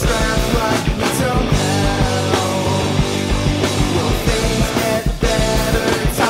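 Rock song recording by a guitar, bass and drums trio, the full band playing steadily.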